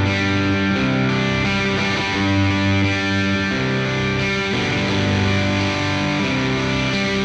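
Electric guitar played through a Catalinbread Dirty Little Secret MkIII overdrive pedal: overdriven, sustained chords, the notes changing about every second.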